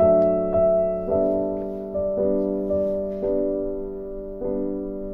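Slow background piano music: a chord is struck about once a second and fades before the next.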